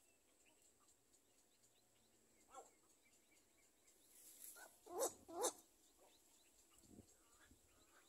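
Near silence broken by two short animal calls about half a second apart, a little past the middle, with a fainter call earlier.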